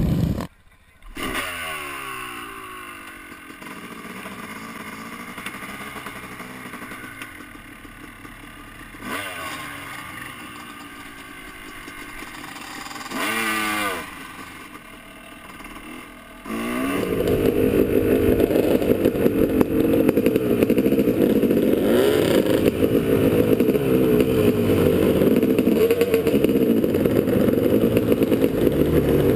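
Dirt bike engine heard from a camera on the bike. It revs up and falls away again and again while riding a trail, with one louder rev about two-thirds of the way through the first half. About halfway through it jumps suddenly to a loud, steady run at high revs.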